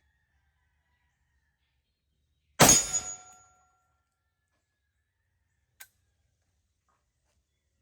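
A single shot from a Desert Eagle .50AE pistol firing a 300-grain round, loud and sudden, with a short metallic ring trailing off after it. A faint click follows about three seconds later.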